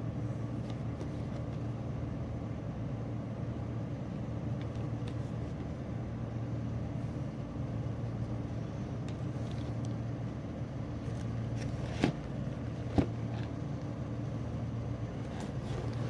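A steady low hum, with two sharp knocks about twelve and thirteen seconds in.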